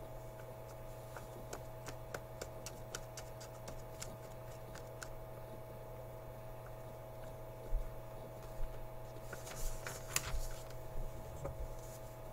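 Quiet room tone with a steady hum, broken by scattered faint clicks in the first few seconds and a short rustle about ten seconds in.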